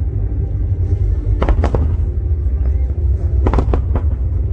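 Festival music with a heavy low rumble, broken by fireworks going off: a pair of sharp bangs about a second and a half in and another pair near the end.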